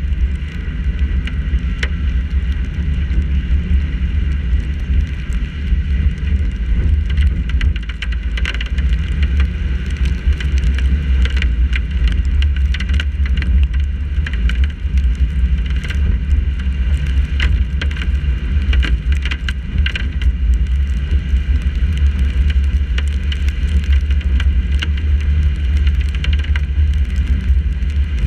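Steady low rumble of a car driving on wet streets, heard through a GoPro mounted on its hood, with frequent sharp ticks of raindrops striking the camera.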